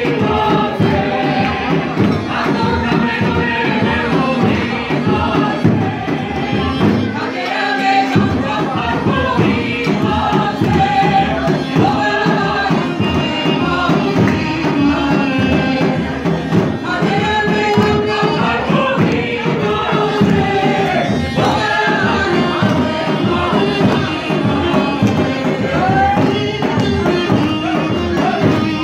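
Live Armenian folk music: a costumed ensemble singing together, with folk wind pipes playing alongside, as one steady, dense stretch of music.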